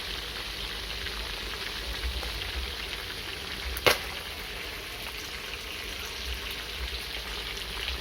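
Meat frying in a pan, a steady sizzle with fine crackling, and one sharp click about four seconds in.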